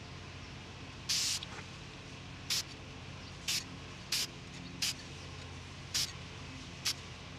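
Aerosol can of Rust-Oleum metallic spray paint hissing in seven short bursts. The first burst, about a second in, is the longest, and the rest are quick puffs about a second apart, laying down a thin coat.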